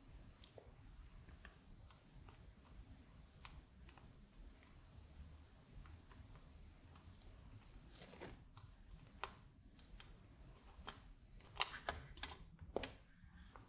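Faint scattered clicks and taps of small wire-lead resistors being handled and pushed into a circuit board's through-holes, with a louder cluster of clicks near the end as more resistors are picked up from the mat.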